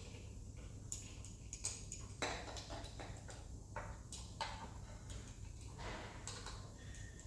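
Irregular metallic clinks, taps and knocks of hand tools and engine parts being handled during an engine strip-down, some with a short ring, over a low steady hum.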